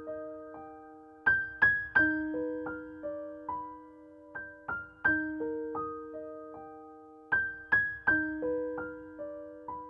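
Background music: a slow piano melody, struck notes ringing on and fading, with small runs of quicker higher notes now and then.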